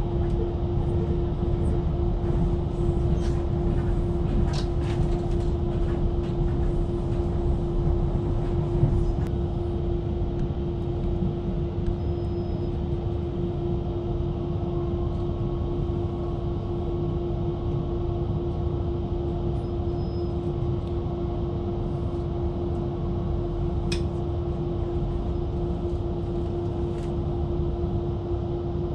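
Steady rumbling noise inside a moving vehicle, with a constant low hum and a few faint clicks.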